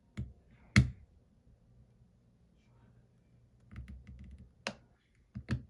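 Sharp clicks and taps of a pry tool working the cracked screen off an iPhone 14 Pro Max, with one loud snap a little under a second in and a quick run of small clicks near the end.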